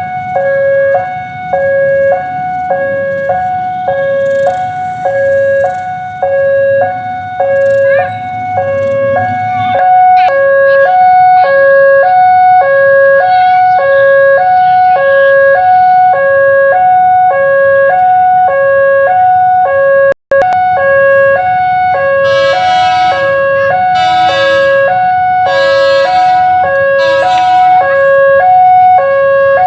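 Railway level-crossing warning alarm sounding its two alternating tones, switching about twice a second, the signal that a train is approaching. Near the end, four short horn blasts sound over it.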